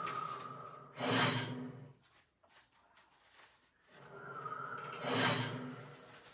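Two rushing whooshes of noise from the anime playing on the television, each swelling up and dying away over about a second, the first about a second in and the second about five seconds in. A faint thin tone leads into each.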